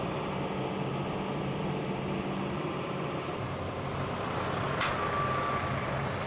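Tracked excavator's diesel engine running steadily with a low hum, over outdoor background noise. About five seconds in, a click is followed by a short steady high tone.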